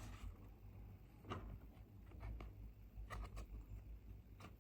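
Faint rustling and a few light clicks of toy spy-kit items and papers being handled, over a quiet room hum.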